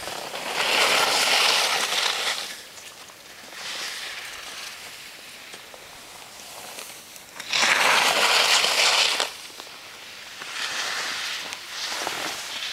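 Skis scraping and hissing over snow in several bursts: two long loud ones, one about half a second in and one about seven and a half seconds in, with weaker scrapes between.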